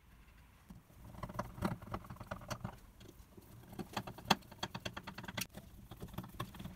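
Small screwdriver driving small wood screws through the mounting tabs of a microwave turntable motor into a wooden base: irregular scratchy clicks and ticks, the sharpest about four seconds in.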